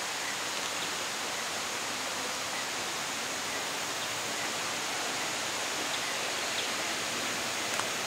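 Steady rushing of running water, an even hiss with no change, with a couple of faint ticks near the end.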